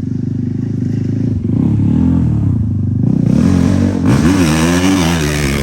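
Dirt bike engine revving up and down repeatedly under the rider's throttle, growing louder from about three seconds in.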